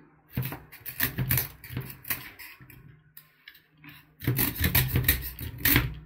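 Small saw blade of a Parkside multitool sawing a thin piece of wood in back-and-forth strokes. The strokes ease off briefly in the middle, then come faster and louder from about four seconds in.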